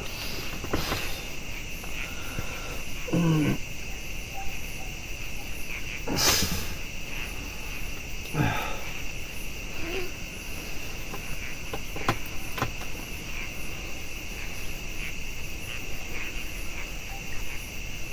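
Night insects, crickets among them, chirring steadily in a high, unbroken drone. A few short, low sounds that fall in pitch stand out over it, twice, and there is a brief sharp rustle partway through.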